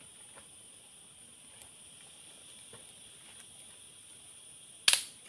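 Steady high-pitched chorus of insects, with faint scattered ticks and one sharp snap near the end.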